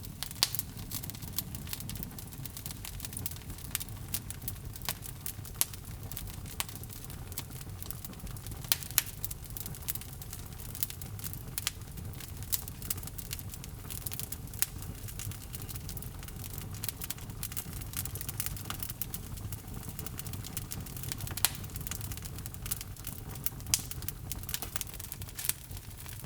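Log fire burning in a fireplace: a steady low rumble of flames with frequent irregular sharp crackles and pops from the burning wood.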